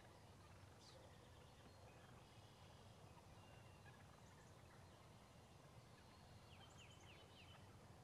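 Wild turkey toms gobbling faintly, with a quick run of short calls about seven seconds in, over a low steady outdoor hiss.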